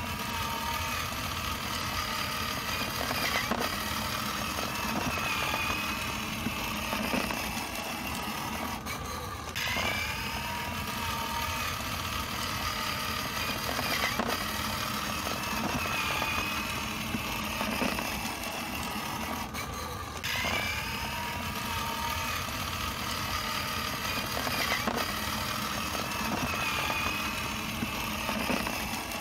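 A recorded motorcycle engine sound effect, looping about every ten seconds with a short break each time it restarts, for a battery-powered toy ride-on motorcycle.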